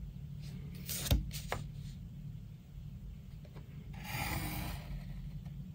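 A light knock about a second in as a plastic set square is handled on the drawing board, then a pencil drawn along the set square's edge, scratching briefly across paper around four seconds in.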